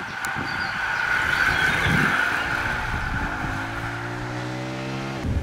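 A motor vehicle going past, then its engine accelerating, the pitch climbing steadily for about three seconds before cutting off suddenly near the end.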